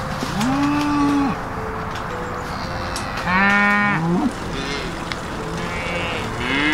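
Cattle mooing: three drawn-out moos of about a second each, the middle one the loudest, with fainter, higher calls between them.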